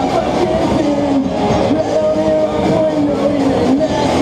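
Live rock band playing amplified electric guitars over a drum kit.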